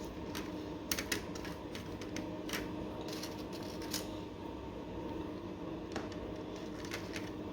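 Light, irregular clicks and taps of modular wine rack parts as a connector piece is slid into a bottle holder, with a faint steady hum underneath.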